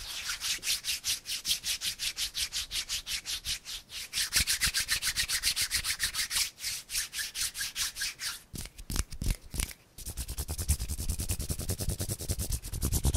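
Palms rubbing together fast and close to the microphone, an even swishing of about seven strokes a second. Near the end the rubbing slows and stops for a moment, then starts again deeper and heavier as the cupped hands rub right up against the microphone.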